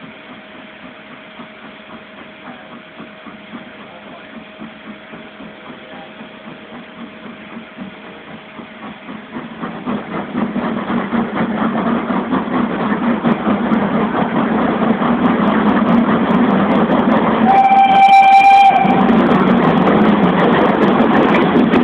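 Two steam locomotives, an LMS 8F 2-8-0 and a Crab 2-6-0, double-heading a train away from a station. Their exhaust beats build from faint to loud from about ten seconds in as they work up to speed, and a steam whistle gives one short blast near the end.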